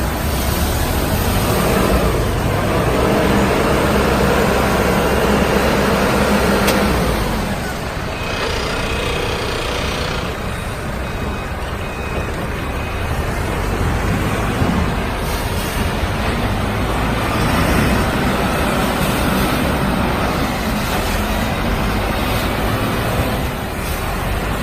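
Self-loading concrete mixer truck's diesel engine running, loudest for the first several seconds, then dropping lower, with a swell again later on.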